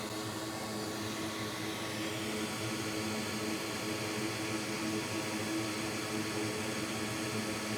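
Steady whoosh of a small fan with a faint even hum, from electronics-repair bench equipment running during board rework.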